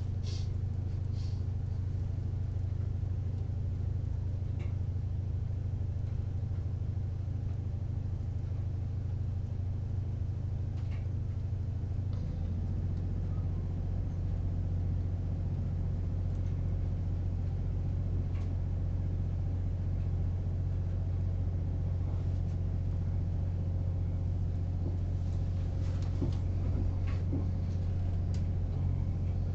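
Class 185 diesel multiple unit heard from inside the carriage as it pulls away: a steady low engine hum and rumble whose note shifts about 12 seconds in as the train gathers speed, with a few light clicks and rattles near the end.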